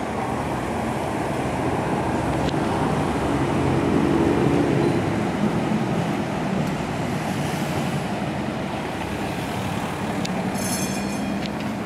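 Tram running along street rails, a steady rumble that swells to its loudest about four seconds in, with a brief high-pitched squeal near the end.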